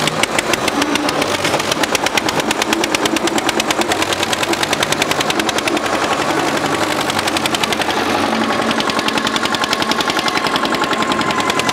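Two tractor diesel engines, an Eicher 242 and a Mahindra 275 DI, running at full throttle under heavy load as they pull against each other on a chain, the exhaust beating in a rapid, even stream of sharp pulses.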